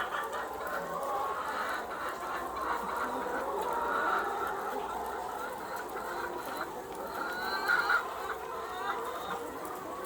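Flock of commercial laying hens clucking, many overlapping calls at once, with one louder squawk late on.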